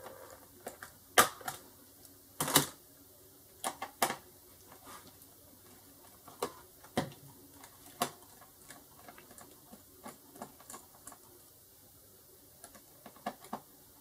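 Sharp plastic clicks and snaps as the bottom access cover of a Toshiba Satellite L655 laptop is pried off its case. Fainter taps and handling of the plastic casing follow, with a few more clicks near the end.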